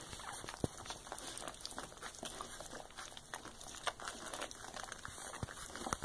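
Wheaten terrier mother licking and nuzzling her newborn puppy: soft, irregular licking and rustling with a few small clicks.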